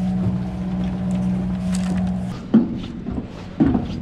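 A sportfishing boat's engine running with a steady hum, stopping about two seconds in, followed by a single sharp knock.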